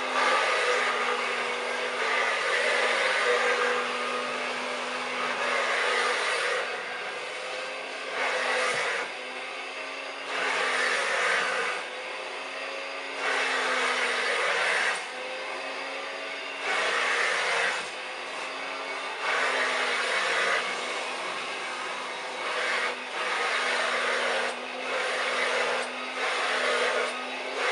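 1930s Hoover Dustette 100 hand vacuum cleaner running with a steady motor hum, its airflow rising and falling every 2 to 3 seconds as the nozzle is worked back and forth over sofa upholstery. The owner believes something is grinding in its fan.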